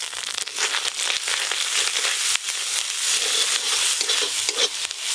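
Poppy-seed and melon-seed paste sizzling in hot oil in a kadai, with a metal spatula scraping and stirring it against the pan.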